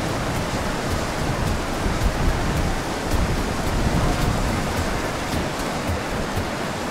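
Wind buffeting the microphone on a moving boat: a steady rushing noise with an uneven low rumble.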